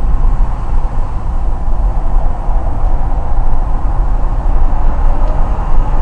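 Steady low rumble of a car travelling at about 60 km/h, heard from inside the cabin: tyre and road noise mixed with engine and wind noise.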